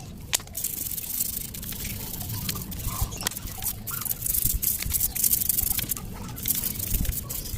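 A stiff brush scrubbing a soapy metal motorcycle cylinder block, a rapid scratchy rasping with wet splashes and small knocks.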